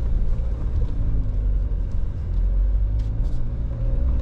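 A Jeep's engine pulling at low speed under load as it crawls through a trail obstacle, a steady low rumble heard from inside the cab, with a few brief clicks about three seconds in.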